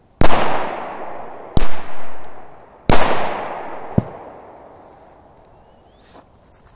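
Three big firecrackers exploding a little over a second apart, each bang trailing off in a long echo through the forest. A fourth, shorter and sharper crack follows about four seconds in.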